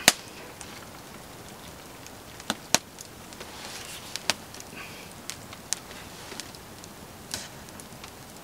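Campfire crackling, with sharp single pops every second or so. About four seconds in, a short soft hiss of hot water poured from a kettle into a bowl.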